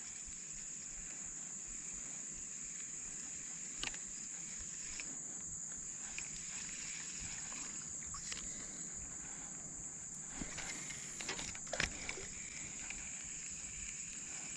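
Steady high-pitched drone of insects. A few faint clicks and soft knocks come about four and eight seconds in, and a short cluster of them near the end.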